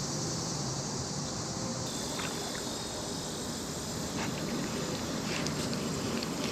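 Steady high-pitched insect chorus over a low, even background rumble, with a few faint ticks in the second half.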